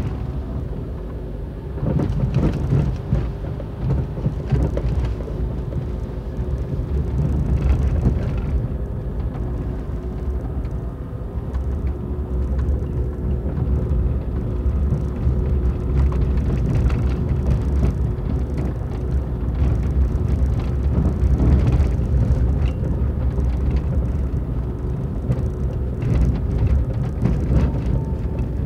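A car driving slowly on a rough, wet gravel road: a steady low rumble of engine and tyres on loose stones, with a faint steady hum and occasional knocks as the car jolts over bumps and potholes.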